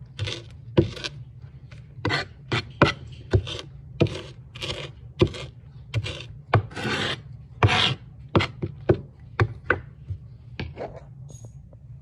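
Homemade ulu knife chopping diced vegetables on a cutting board: a run of crunchy chops about two a second, with a couple of longer scraping strokes around the middle. The chopping stops about a second before the end.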